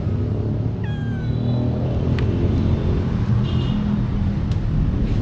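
A stray cat meows about a second in, a short call falling in pitch, and a second, higher brief call follows a little past three seconds, over a steady low rumble.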